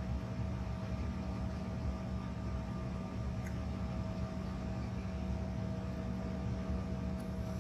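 Cabin noise inside a Bombardier CRJ1000 regional jet taxiing: the engines' steady hum over a low, uneven rumble, with a few faint higher steady tones.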